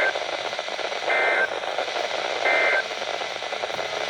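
NOAA Weather Radio SAME data bursts: three short, shrill two-tone digital chirps about 1.4 s apart over steady radio hiss. They are the end-of-message code that closes the weather radio alert.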